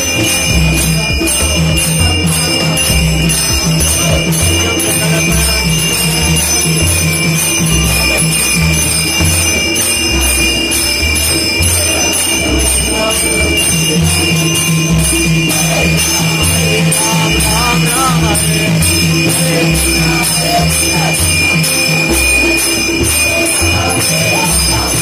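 Aarti music for Ganesh Chaturthi: a bell ringing continuously over rhythmic clapping and a steady low beat, with voices in the mix.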